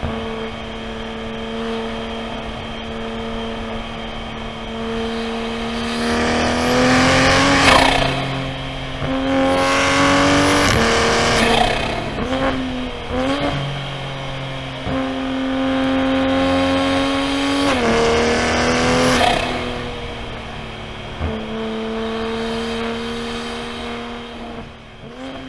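A90 Toyota Supra's turbocharged B58 inline-six running steadily under light load, with three stretches of harder throttle where the revs climb and then drop back.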